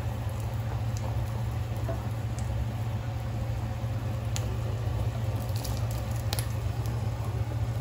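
Soup at a rolling boil in a stainless steel stockpot: steady bubbling and popping over a low steady hum, with a few scattered clicks.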